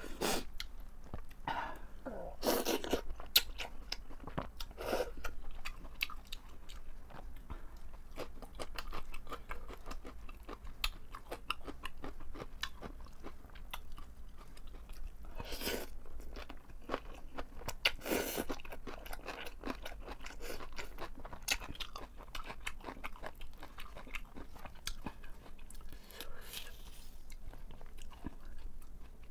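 Close-miked eating: steady wet chewing and crunching of napa cabbage kimchi and noodles. A few louder noodle slurps stand out, about five of them spread through the clip.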